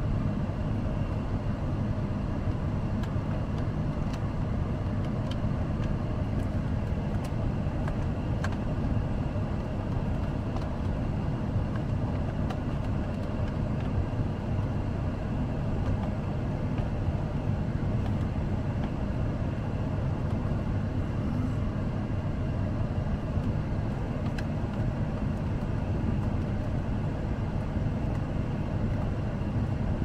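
A car's engine running steadily at idle, heard from inside the cabin, with a few faint light clicks.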